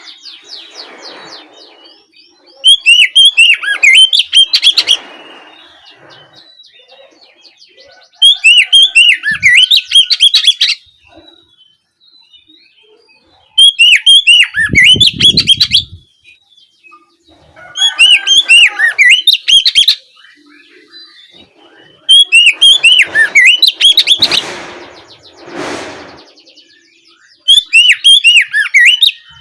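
Oriental magpie-robin (kacer) singing loud, full song in the open 'ngeplong' style. It comes in quick, chirping phrases about two to three seconds long, repeated roughly every five seconds with short pauses between.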